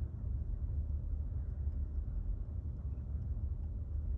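Steady low hum with a faint hiss over it, with no distinct clicks or knocks.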